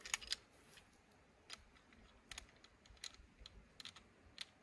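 A few faint, sharp clicks and taps, spaced irregularly, from a suppressed 9mm pistol being handled and readied in the hands.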